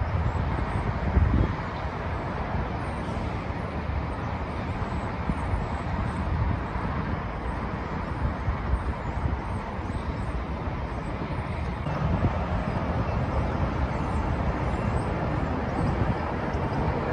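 Steady outdoor traffic noise: a continuous rumble and hiss of passing vehicles, with no clear single event standing out.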